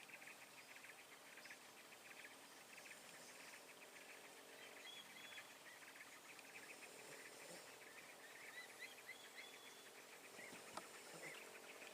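Faint insects trilling steadily in a rapid pulsing buzz, joined from about five seconds in by scattered short, high chirps from small birds.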